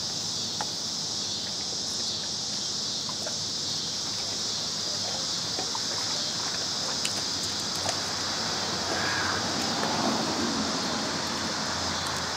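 Steady high-pitched drone of an insect chorus, with faint scattered clicks of a dog biting and tugging at a piece of raw beef oxtail held in a hand.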